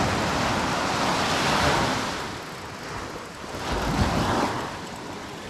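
Small surf waves breaking and washing up a sandy beach, the wash swelling twice: through the first two seconds and again about four seconds in.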